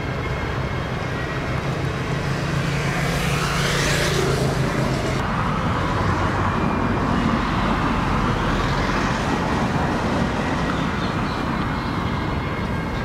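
Steady road traffic noise, with one vehicle passing by about four seconds in.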